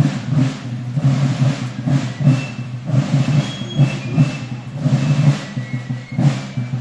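Marching band of drums and fifes playing a march, with a steady drum beat of about two beats a second and short high fife notes above it.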